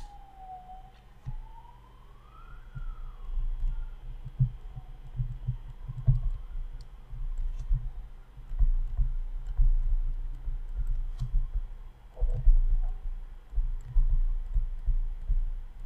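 Stylus writing on a tablet screen, heard as irregular dull taps and knocks.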